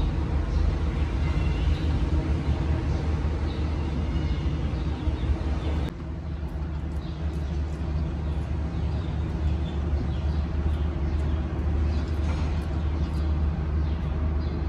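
Steady low rumble of a running engine or motor, dropping in level abruptly about six seconds in.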